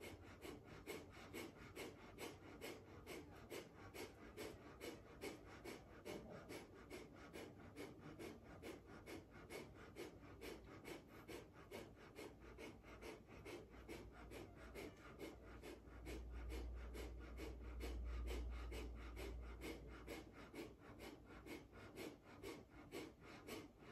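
A person doing breath of fire (kapalabhati) yoga breathing: short, forceful exhalations through the nose, pumped by the belly, in a faint, steady rhythm of about two and a half a second. A low rumble comes in for a few seconds past the middle.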